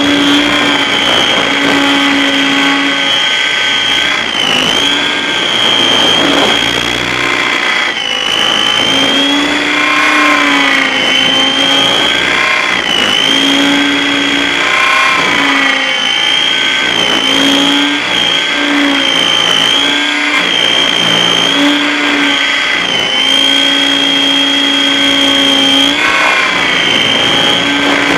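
RC aircraft motor and propeller running under power in flight, heard close up from the airframe: a steady high whine that dips briefly in pitch a few times as the throttle changes.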